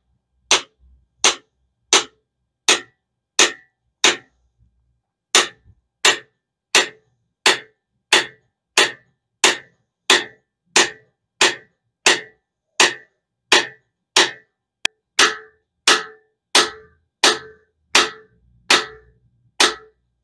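Steady hammer blows driving a new cam bearing into the bore of an AMC 360 V8 block with a bearing installer tool. There are about 27 sharp metallic strikes, roughly one every 0.7 s, with a short pause about four seconds in.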